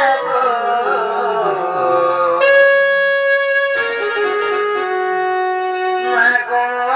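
Traditional folk music: a reed instrument playing a slow melody of long held notes.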